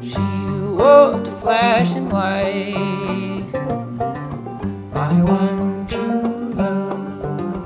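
Two acoustic guitars playing a folk song together, picked and strummed.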